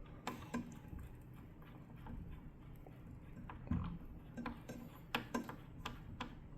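Faint, irregular small clicks and light metallic taps from the blade washer and parts of a cordless circular saw being fitted by hand during blade installation.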